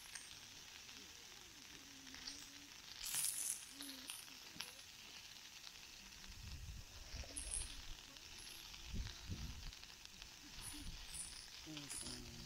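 Skewered pork rolls sizzling steadily in a steel frying pan over a small fire stove as they are turned with chopsticks. A brief louder burst of hissing comes about three seconds in, and some low rumbling follows in the middle.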